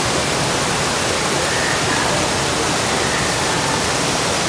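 Small waterfall cascading over rockwork into a pool: a steady rush and splash of falling water.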